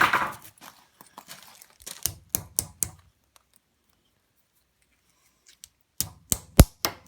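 Cross-peen hammer blows on a thin sheet-metal leaf against the anvil edge, cold-forging veining into it: a quick run of about five sharp strikes, a pause of about three seconds, then another run of strikes near the end.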